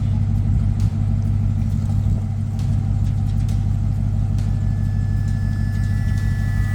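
Pickup truck engine running at a steady low drone. In the last couple of seconds a faint high whine sits over it.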